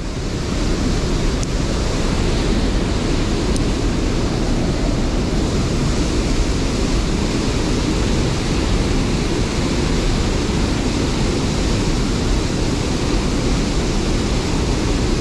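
Loud, steady rush of turbulent water flowing out past a concrete culvert into a river pool.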